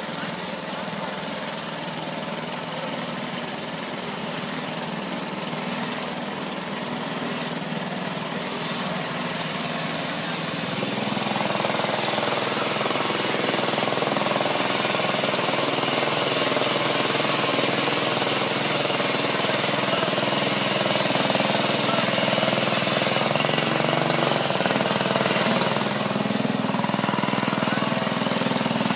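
Briggs & Stratton engine of a Murray riding lawn mower running steadily while the mower drives through pond water, getting louder about a third of the way in.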